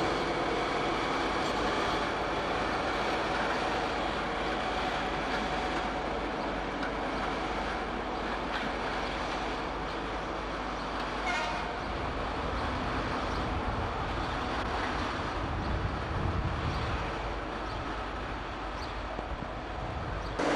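British Rail Class 08 diesel shunter's engine running steadily as the locomotive draws a single coach away at low speed across the station throat.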